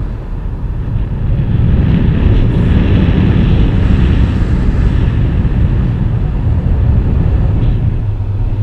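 Wind buffeting an action camera's microphone during a tandem paragliding flight: a loud, steady rush of noise, heaviest in the low range, growing louder about two seconds in.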